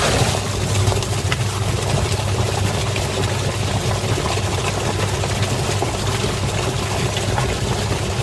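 Twin-tub washing machine's wash motor switching on abruptly and running steadily, a low hum with water churning in the tub.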